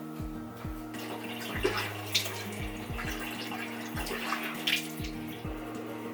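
Background music with a steady beat; about a second in, water starts running for a few seconds, with a couple of sharp clatters, then stops.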